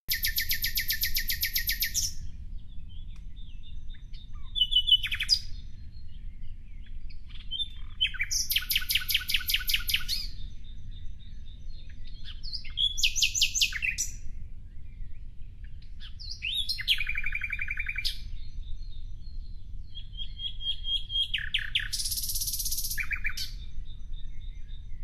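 Birdsong: about six quick trilled phrases, high-pitched and a few seconds apart, over a steady low rumble.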